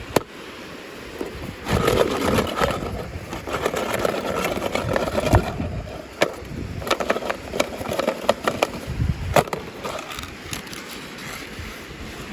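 Packaging being handled and opened by hand: rustling and scraping with many sharp clicks and snaps.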